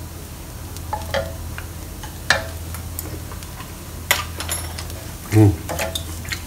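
Sambal chilli paste sizzling gently in a non-stick frying pan on low-to-medium heat, with a few sharp clicks and taps scattered through.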